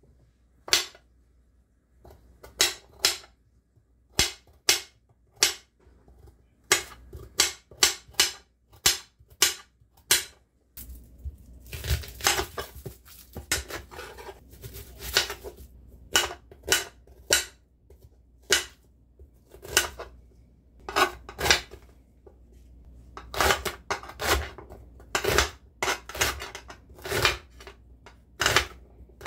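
Chef's knife chopping carrots and then an onion on a hard, glossy printed cutting board: a long run of sharp, irregular knocks of the blade on the board, often several in quick succession.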